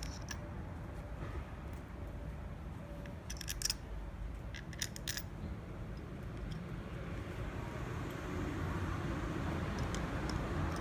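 Two short clusters of light clicks, about three and a half and five seconds in, over a steady low rumble.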